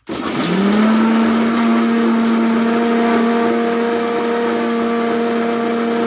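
Electric mixer grinder (mixie) switched on, its motor whine rising quickly as it spins up in the first second, then running loud and steady at full speed.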